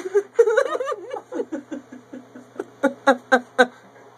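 A person laughing, ending in a run of short, rhythmic bursts of laughter.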